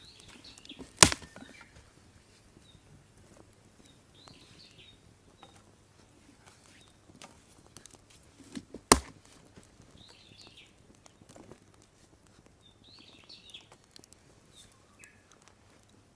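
Dry wood cracking sharply twice, about a second in and again about eight seconds later, among faint scattered crackles and clicks. A small bird calls briefly now and then.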